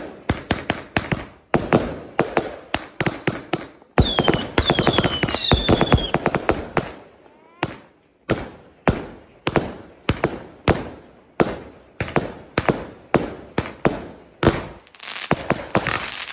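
Fireworks going off at close range: rapid bangs and crackling from bursting shells, with several falling whistles about four seconds in. After a short lull near the middle, shots fire in a steady run, about two a second.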